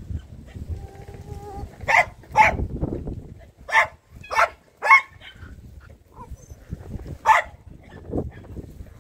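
A dog barking: six short barks, a pair, then three in quick succession, then one more a couple of seconds later.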